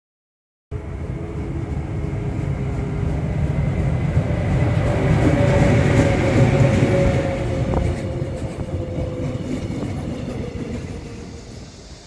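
Mugunghwa passenger train hauled by a Korail electric locomotive moving along a station platform: a heavy rumble of wheels on rail with a steady whine over it, growing louder toward the middle and fading away near the end.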